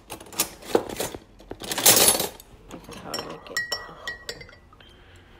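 Metal utensils clattering as a kitchen drawer is rummaged through for a spoon, loudest about two seconds in. Then a metal spoon stirs coffee in a ceramic mug, with several short ringing clinks against the sides.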